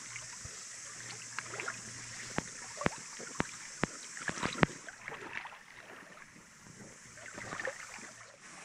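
Muffled water movement heard by a camera held underwater in a stream, with a string of sharp clicks and knocks a few seconds in.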